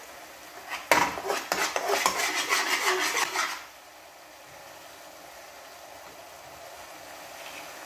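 A metal kitchen utensil scraping and clattering against a pan or bowl in a quick run of strokes, from about a second in until just past three and a half seconds. After that there is only a faint steady hiss, likely the sauce simmering in the pan.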